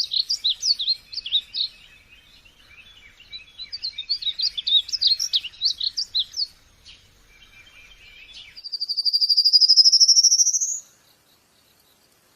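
Small birds chirping in quick, high twittering bursts for about six seconds. Then a single long trill, about two seconds, rises slowly in pitch and stops.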